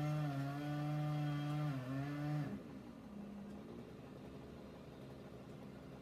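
Chainsaw heard from inside the house, running at steady high revs with a brief dip in pitch, then coming off the throttle about two and a half seconds in, leaving only a faint low engine hum.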